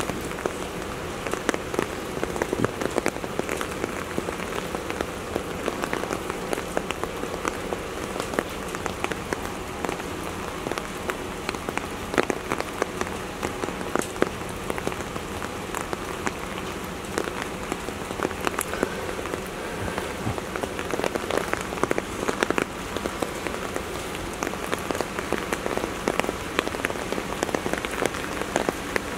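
Steady rain falling, with many separate drops landing close by as sharp ticks.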